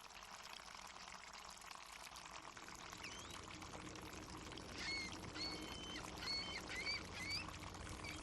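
Harbor ambience: a steady wash of lapping water, with seagulls giving a string of short calls in the second half.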